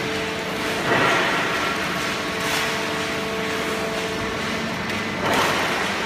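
Horizontal hydraulic baling press and its feed conveyor running with a steady hum, with three louder rustling, scraping swells as scrap paper is loaded onto the conveyor.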